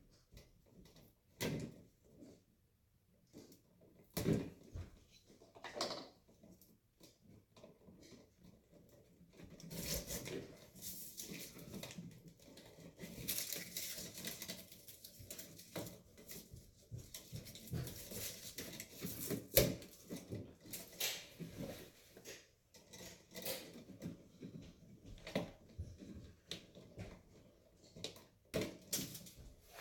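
Hand tools clicking and scraping on electrical cable as its outer sheathing is split open. A few separate clicks at first, then from about a third of the way in, denser irregular scraping and rustling.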